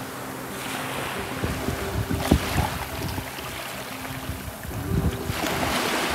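Small surf washing up a sandy beach and around rocks, coming in two swells, with wind buffeting the microphone. A sharp thump about two seconds in is the loudest moment.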